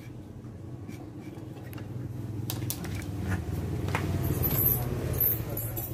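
A motor vehicle's engine hum swells to a peak about four to five seconds in and then eases off. A few light clicks and taps sound over it.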